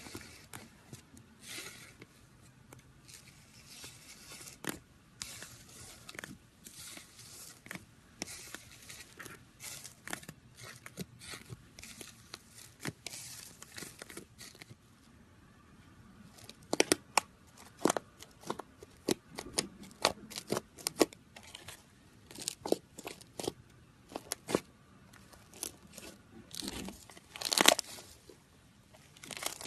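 Slime squished and stretched by hand close to the microphone: irregular sticky crackles and tearing sounds, with sharper, louder pops and snaps in the second half.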